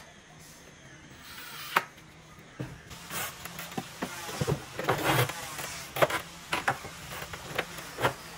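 Pallet-wood slats knocking and clacking against one another as the hinged fan of slats is handled. There is a sharp knock at the start and another just under two seconds in, then a busy run of wooden knocks from about two and a half seconds in.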